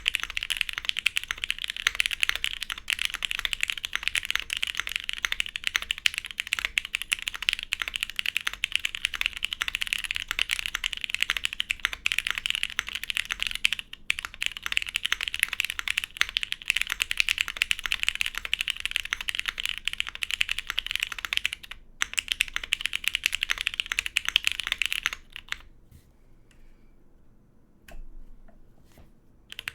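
Steady fast typing on a custom mechanical keyboard: a plateless, gasket-mounted Laminar Leviatán with lubed Cherry MX Black linear switches. The typing stops about three quarters of the way through, leaving a few seconds of near quiet.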